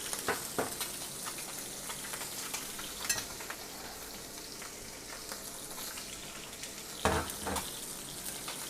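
Confit chicken thighs frying skin side down in a hot pan: a steady sizzle with small crackles, and a brief louder sound about seven seconds in.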